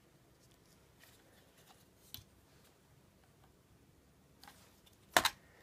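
Faint handling clicks and taps from a laptop's copper heatsink-and-fan assembly and its small fan cable being worked into the motherboard connector, a fiddly fit. One sharp click, the loudest sound, comes near the end.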